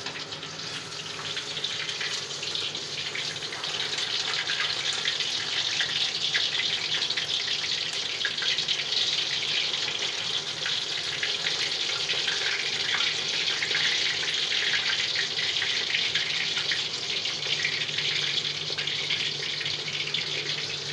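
A piece of lamb rack searing in hot mutton fat in a cast-iron kazan: a steady, dense sizzle full of fine crackling.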